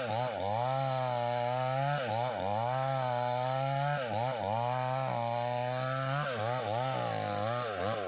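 Small gasoline chainsaw running, its engine speed dipping and recovering roughly once a second. Near the end the engine speed starts to fall away as it winds down.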